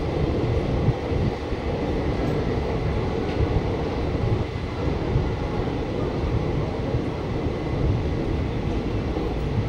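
Passenger express train rolling slowly along a station platform: a steady rumble of the coach and its wheels on the track, heard from an open coach door, with a faint steady high whine.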